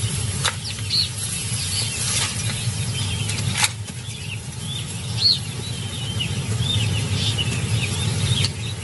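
Many small birds chirping and calling over a low steady rumble, with two sharp clicks, one about half a second in and one about three and a half seconds in.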